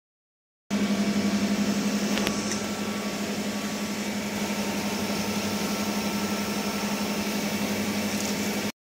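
Steady machine hum of electric motors in a water-treatment plant, with a strong low tone under an even rushing noise. It cuts in abruptly shortly after the start and cuts off abruptly near the end.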